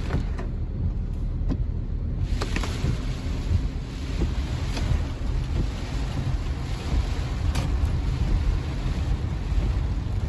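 Car cabin noise while driving on a rain-soaked road: a steady low rumble of the car and wet road, with wind and rain noise and a few faint clicks.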